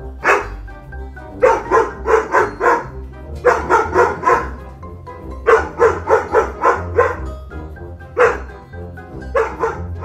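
Doberman barking in quick volleys of four or five barks, with single barks in between. The barks sound over background music with a steady deep bass.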